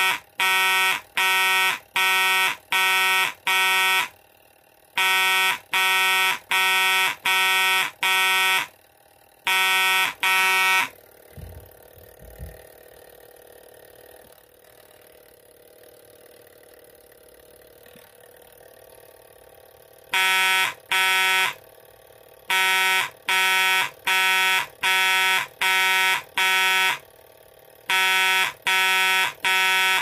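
Fire alarm horn sounding in short buzzing blasts, a little under two a second, in groups with pauses between them: the coded signal set by a vintage Couch coded pull station's turning code wheel. The horn stops for about nine seconds partway through, with two knocks about a second apart near the start of the gap, and then the coded groups start again.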